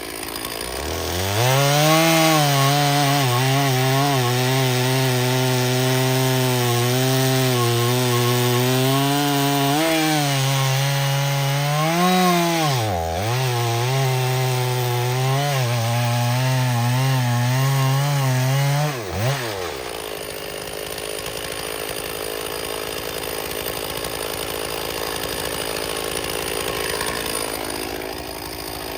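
Stihl chainsaw revving up to full throttle and running hard through a firewood round, its pitch wavering under load. About thirteen seconds in, the revs dip sharply and recover. About nineteen seconds in, the throttle is let off and the engine drops away to a fainter steady running sound.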